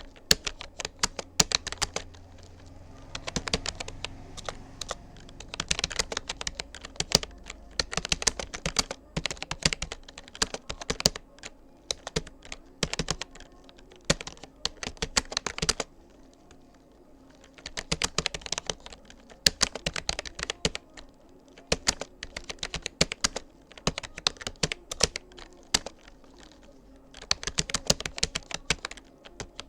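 Rapoo computer keyboard being typed on: rapid runs of keystrokes in bursts, broken by short pauses, with a longer lull about sixteen seconds in and again near the end.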